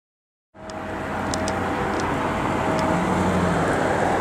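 Diesel locomotive engine of a UP GP40-2 running out of sight, a steady low hum with a thin higher whine, cutting in suddenly about half a second in.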